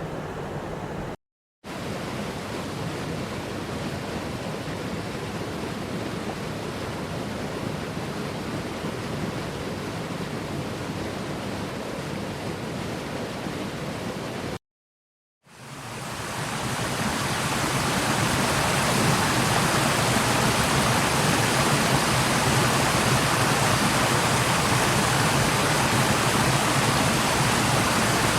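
Recordings of rushing water, a steady hiss without distinct splashes, split by two short silences. After the silence about halfway through, a louder and brighter rush of flowing water fades in and holds steady.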